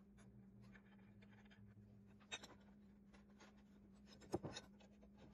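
Quiet handling sounds: faint scraping and two light clicks, about two seconds apart, as bolts are set into a steel corner bracket on a wooden frame, over a low steady hum.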